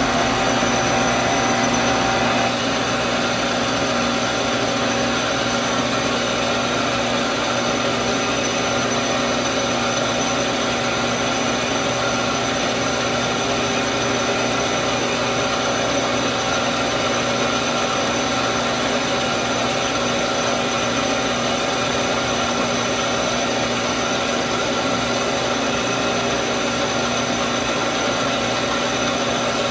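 Metal lathe running steadily, its chuck spinning as an aluminum slug is faced off, with a steady mechanical hum and whine; a little louder in the first couple of seconds.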